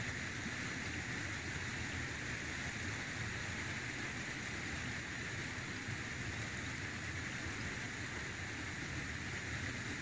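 Steady outdoor hiss with a low rumble underneath, even throughout with no single sound standing out.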